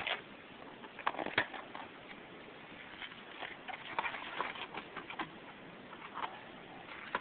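A carrying case and its packaging being handled and opened: scattered small clicks and short rustles, a few sharper clicks about a second in.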